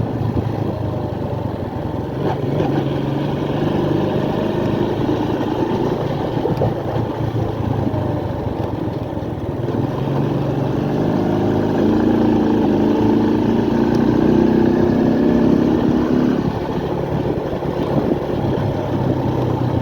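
Motorcycle engine running while being ridden; a few seconds past the middle it works harder and its note grows louder, then settles back. The owner is unsure whether the engine's noise means a fault.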